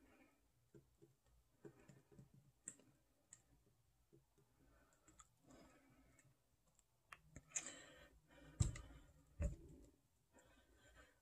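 Faint handling noises of a round acrylic-pour canvas being tilted and laid flat: scattered light clicks and taps, then two low thumps a little under a second apart about two-thirds of the way through.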